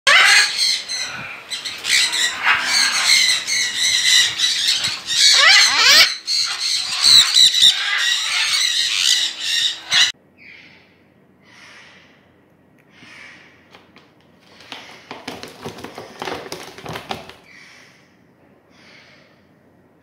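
Blue-and-gold macaws squawking loudly, many harsh calls overlapping. About halfway through it cuts off abruptly to much quieter short calls, roughly one a second, with a spell of rustling and tapping.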